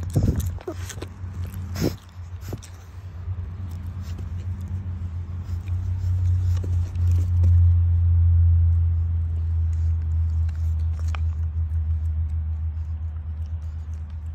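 English bulldog puppy snuffling and sniffing right at the microphone, with sharp clicks and knocks in the first two seconds. Under it runs a steady low hum that swells in the middle and is the loudest sound.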